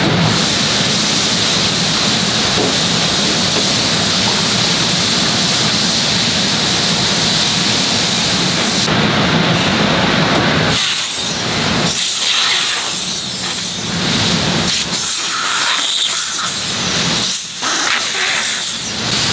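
Steady hiss and low hum of a silicone compression molding press and its machinery running. From about eleven seconds in the noise breaks up into shorter stretches with brief dips between them.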